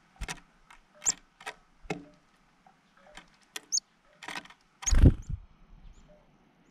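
A black-capped chickadee moving about on a wooden platform feeder heaped with sunflower seeds: an irregular run of sharp clicks and taps from its feet and bill on the wood and seeds, with a louder low thump about five seconds in.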